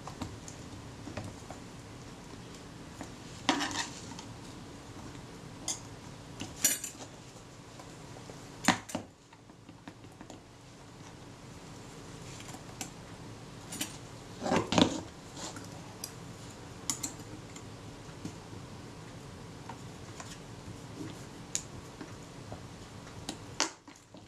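Irregular small clicks and knocks as a metal camera body is handled and repositioned by hand, spaced a few seconds apart with the loudest cluster about two-thirds of the way through, over a faint steady hum.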